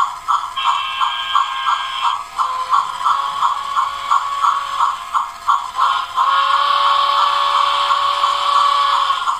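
Electronic steam-locomotive sound effects played through a homemade train sound box's speaker: a regular chuffing beat of about three a second, with a whistle over it about half a second to two seconds in. About six seconds in the beat gives way to a steady running sound that stops shortly before the end.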